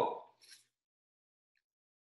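A man's exclamation "Oh!" fading out as he eats a citrus segment, followed by a short hiss about half a second in. After that, near silence.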